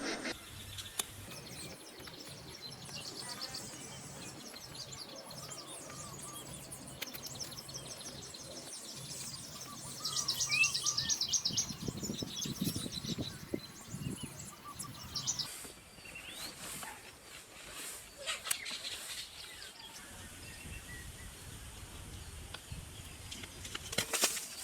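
Small birds chirping and trilling over quiet outdoor background noise, with a louder burst of rapid trilling about ten seconds in.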